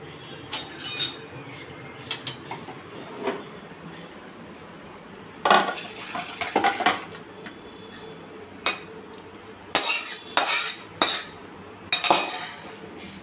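A metal spoon or ladle clinking and scraping against a metal pot and a ceramic bowl as soup is served out. The clinks are scattered, with a busier run about halfway through and several sharp strikes near the end.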